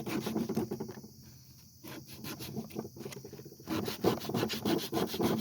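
A wooden duck-call piece rubbed back and forth on sandpaper in quick, short scratchy strokes, easing off for about a second near the start and then picking up again.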